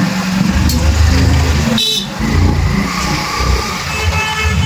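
Road traffic from a moving motorcycle: steady engine rumble, with a vehicle horn honking near the end.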